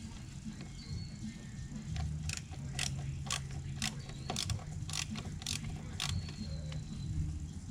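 Irregular sharp clicks and clinks of hand tools and small metal parts being handled while a fish finder transom mount is taken apart, about one or two a second, over a steady low hum.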